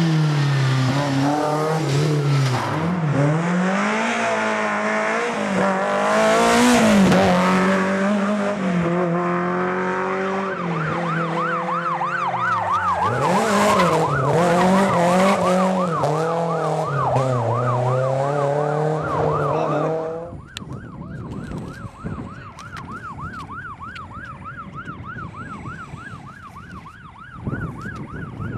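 BMW rally car engines revving hard, the pitch swinging up and down with throttle and gear changes. From about ten seconds in, a fast warbling electronic siren joins. About twenty seconds in the engine noise cuts off, and the course car's yelping siren carries on alone, quieter.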